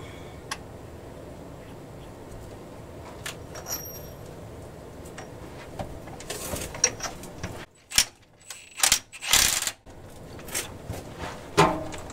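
Light metallic clinks of the washer and nut being handled, then several short bursts from a Milwaukee Fuel cordless impact wrench driving the yoke nut onto the transmission output shaft, between about six and ten seconds in.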